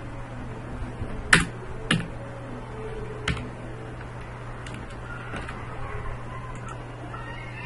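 Computer keyboard being used: three sharp key clicks in the first three and a half seconds, then a few fainter taps, over a steady low hum.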